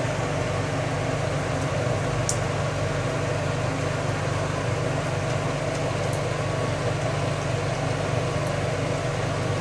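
Steady, even mechanical hum and airflow noise of a fan-like ventilation source, with a few faint ticks.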